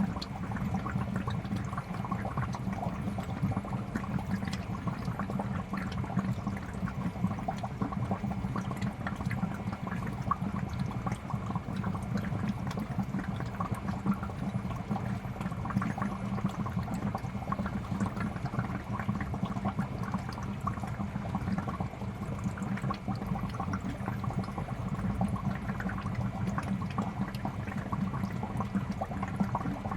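Aquarium air bubbler running: a steady stream of bubbles rising and breaking at the water's surface, with fine gurgling and popping.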